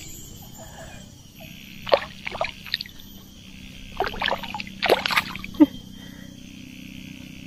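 A hooked Nile tilapia splashing at the water's surface as it is drawn in on the line, in two short flurries of splashes about two seconds in and again around four to five and a half seconds. A steady chirring of insects runs underneath.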